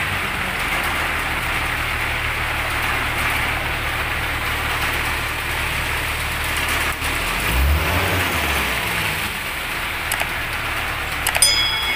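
Ready-mix concrete truck's engine running steadily while the truck pours concrete, with a brief rise and fall in engine speed about eight seconds in. Near the end come a mouse click and a short bell chime from a subscribe-button animation.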